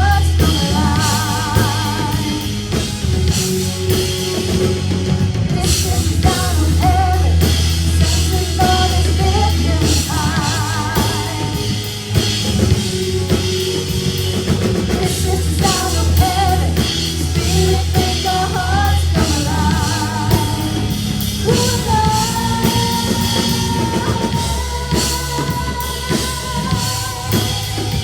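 Contemporary worship song: a lead voice sings with vibrato over a full band led by drum kit and bass. A long sustained sung note begins about two-thirds of the way in.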